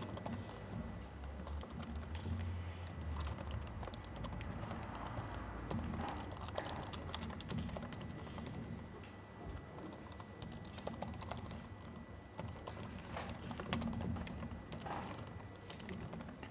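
Typing on a laptop keyboard: a continuous run of quick, irregular key clicks.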